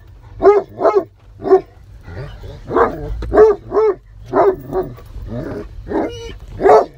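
Great Pyrenees dog barking excitedly inside a car: a string of about ten short barks, roughly one every half second, over a low rumble from the car.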